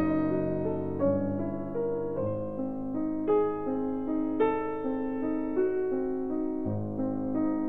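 Slow piano background music, with new notes or chords struck about once a second and left to ring.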